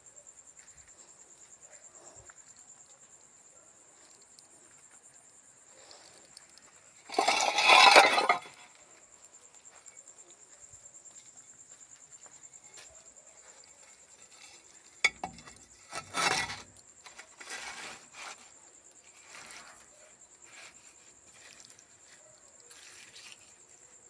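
Night insects trilling steadily in a high, fast-pulsing tone. A loud burst of rustling noise about seven seconds in, then a sharp click and a few shorter rustles and knocks in the second half.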